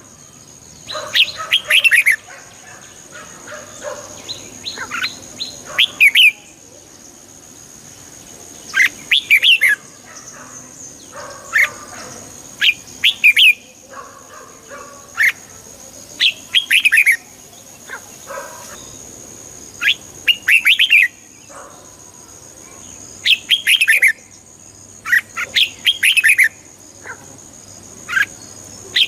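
Red-whiskered bulbul singing: short, bright warbled phrases repeated every one to three seconds, with softer chatter between them. A steady thin high whine runs underneath.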